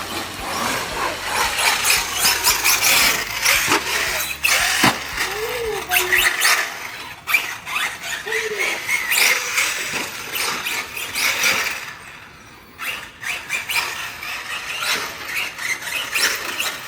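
Traxxas Sledge 6S RC monster truck being driven hard, its brushless electric motor whining and surging up and down as the throttle is worked. There is a short lull about twelve seconds in.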